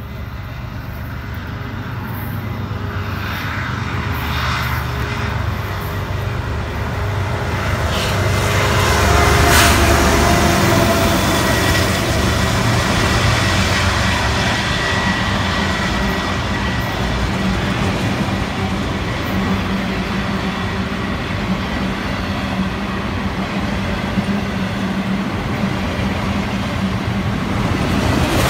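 BNSF ET44C4 diesel-electric locomotive approaching and running past, growing louder to its loudest about nine to ten seconds in. After that comes the steady rumble of autorack freight cars rolling by on the rails.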